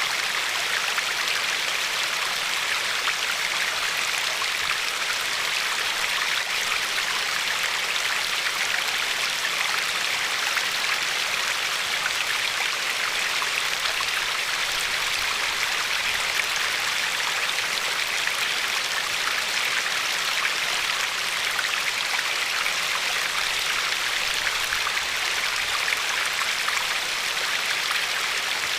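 Glacier-fed river flowing steadily, water rushing and lapping over a pebbly shore in an even, unbroken hiss.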